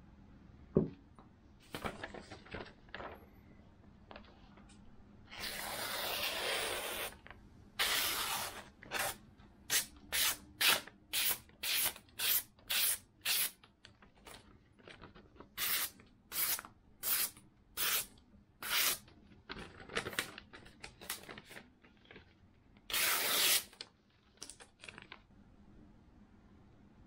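Sharpened kitchen knife slicing through a sheet of glossy paper to test the edge: a quick run of short papery swishes, about two a second, with a longer drawn cut before the run and another after it.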